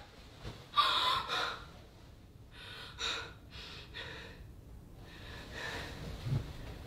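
A few faint, short breaths from a woman moving on a bed, with a soft low thump near the end.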